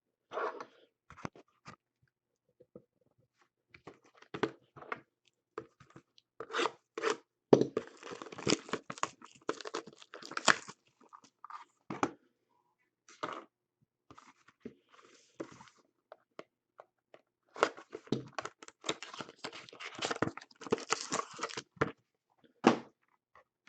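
Sealed trading card packs being torn open and handled: wrappers ripping and crinkling in irregular bursts, loudest in two long clusters with a quieter spell between them.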